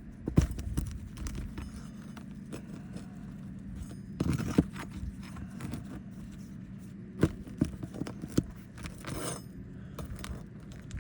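Metal roofing tool scraping and clicking against asphalt shingles as the shingles above a damaged one are worked loose, with a burst of scraping about four seconds in and a few sharp clicks later on.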